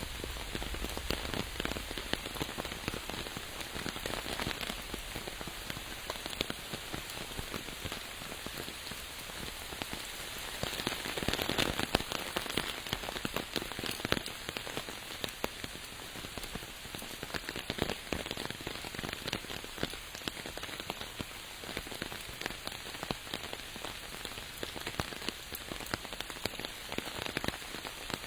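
Steady rain falling, a dense patter of individual drops hitting a surface, swelling heavier for a couple of seconds about eleven seconds in.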